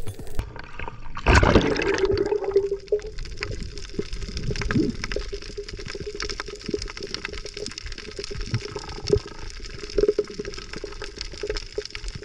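Underwater sound picked up by a diver's camera: muffled water with many brief crackling clicks throughout, and a louder rush of water noise about a second and a half in.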